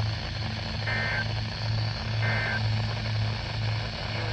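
Steady low engine hum of an idling vehicle, with a short high electronic double beep repeating about every second and a half.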